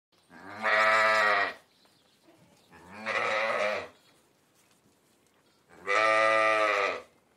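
Ram (male sheep) bleating three times: deep, drawn-out bleats, each about a second long and spaced roughly two and a half seconds apart.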